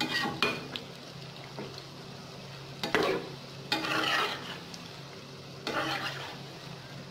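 Gram-flour potato and onion pakoras sizzling as they deep-fry in hot oil in a metal wok. A slotted metal spatula stirs them and scrapes against the pan in several short strokes: near the start, about three and four seconds in, and about six seconds in.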